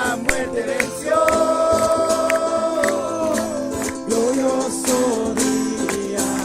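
A group of voices singing a Spanish Christian worship song together, with held notes over a strummed acoustic guitar.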